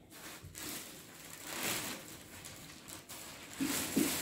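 Rustling of clear plastic packaging and a woollen top being handled on a table, with a short louder sound near the end.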